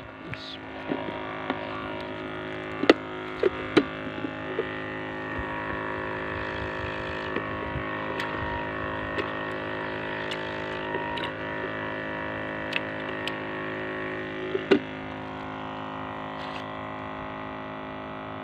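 Steady machine hum of many even tones, with a few sharp clicks and knocks as a plastic bait bucket is handled.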